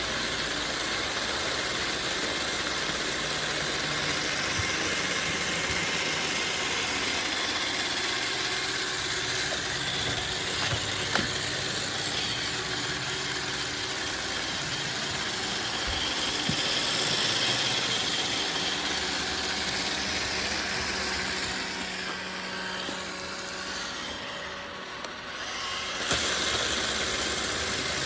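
iRobot Roomba robot vacuum running: a steady whir of its suction motor and brushes. It grows quieter for a few seconds near the end, then picks back up with a click.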